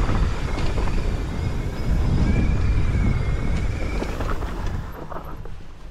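Wind buffeting the camera microphone and a mountain bike rolling fast down a rocky dirt trail, with tyre noise and sharp rattling knocks from the bike over rocks. A wavering high-pitched squeal runs through the middle, and the noise eases off near the end as the bike slows.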